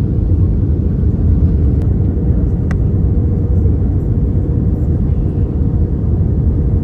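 Airbus A320 cabin noise during the descent to land: a steady low rumble of the engines and the airflow past the fuselage, with a faint steady hum and a couple of faint ticks.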